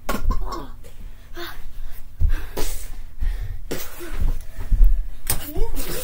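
Children play-fighting: a run of irregular thumps and knocks from bodies and feet hitting the floor and furniture. Short vocal noises come in near the end.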